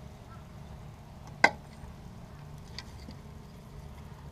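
A single sharp click about a second and a half in, then a faint tick, over a low steady background hum.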